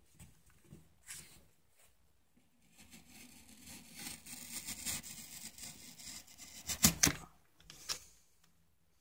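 A sharp knife blade cutting through thin cereal-box cardboard along a stencil, a soft scratchy rasp of the cut, with a few sharp clicks about seven seconds in.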